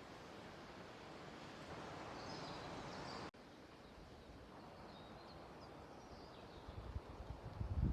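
Faint woodland ambience with distant birds giving thin, high chirps now and then. Near the end, low thumps on the microphone begin.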